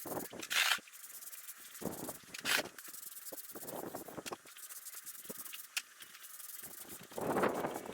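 Short, irregular swishing and scraping noises from cleaning work on block paving, with a longer, louder stretch of hiss near the end.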